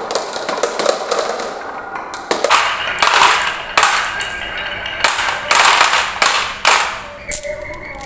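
Marbles rolling and clattering down a toy marble run: a fast stream of small clicks, then, about two and a half seconds in, louder rattling rushes that come in several waves.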